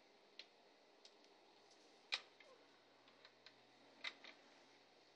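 Plastic puzzle pieces clicking as they are set into a plastic tray: a few light, scattered clicks, the sharpest about two seconds in and a quick pair about four seconds in, over a faint room hush.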